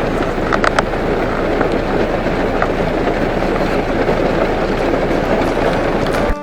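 Heavy downpour: a steady, loud rush of rain that cuts off suddenly near the end.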